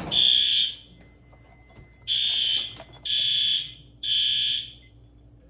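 Fire alarm sounding the temporal-three evacuation pattern: high-pitched beeps of about half a second, three in a row a second apart, then a pause. One group ends just after the start, and a full group of three follows about two seconds in.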